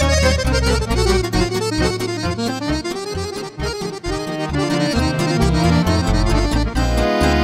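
Accordion playing a fast lăutărească tune: quick running melody lines over a pulsing bass.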